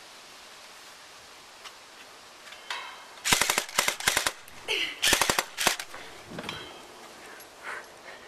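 Airsoft gun firing two quick bursts of sharp cracking shots, about three seconds in and again about five seconds in, roughly ten shots in all.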